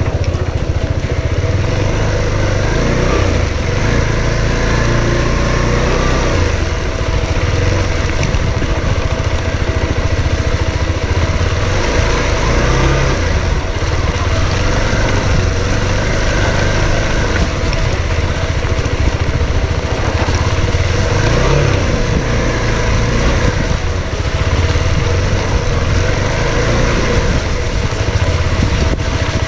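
Motorcycle engine running steadily while riding, its note shifting up and down a little with the throttle.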